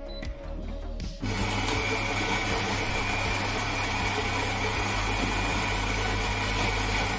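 Philips 2200 LatteGo's built-in grinder starting about a second in and grinding whole coffee beans for an espresso, a steady loud grinding whir with a low hum that stops near the end.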